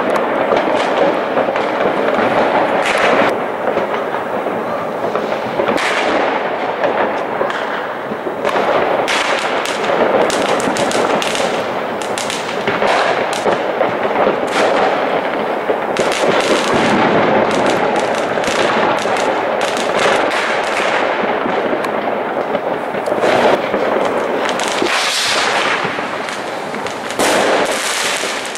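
Many fireworks going off at once: a continuous dense crackle with sharp bangs of bursting rockets packed close together throughout, never pausing.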